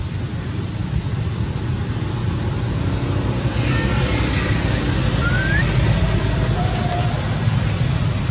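Steady low rumble and hiss of wind on the microphone, growing a little louder about three seconds in, with a few faint short high chirps in the middle.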